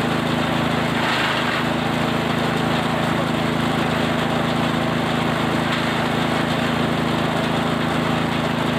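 Small engine-driven feed chopper running steadily, with an even engine hum and a constant level throughout.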